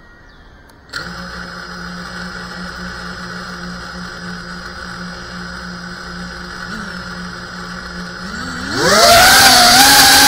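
FPV racing quadcopter's brushless motors starting up about a second in and spinning at idle with a steady whir. Near the end the throttle goes up for takeoff: the pitch rises sharply and the motors become much louder, a high whine.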